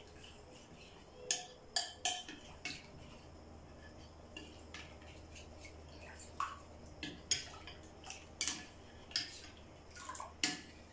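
A spoon stirring custard powder into water in a glass bowl, clinking irregularly against the glass sides.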